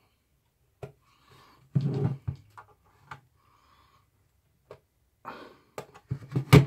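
Handling noise from a plastic soldering-station case being pressed, pried at and turned over on a wooden workbench: scattered knocks and clicks. There is a dull thud about two seconds in, and a cluster of sharper knocks near the end, the last one the loudest.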